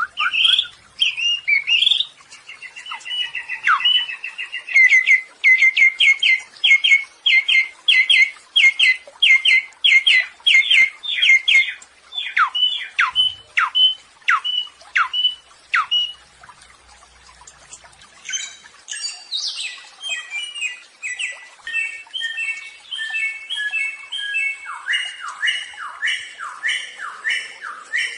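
Samyong songbird singing loud, repeated whistled notes. A quick run of about two even notes a second gives way to steeply falling whistles, and after a short pause the bird sings a varied phrase of stepped notes.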